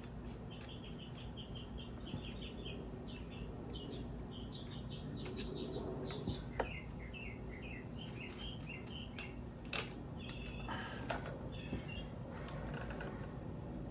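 A small bird chirping in quick repeated runs of short high notes, with a sharp click about two-thirds of the way through.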